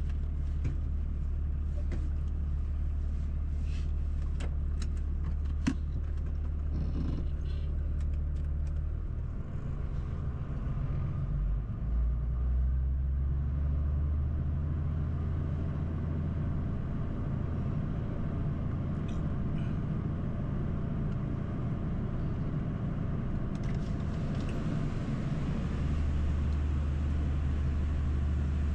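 Truck engine heard from inside the cab: a steady low idle with a few sharp clicks in the first several seconds. About ten seconds in, the engine note changes and swells as the truck pulls away, then settles into a steady low drone as it drives slowly.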